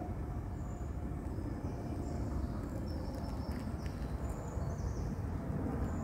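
Wind buffeting the microphone as a low, uneven rumble outdoors, with a few faint, short, high bird chirps scattered through.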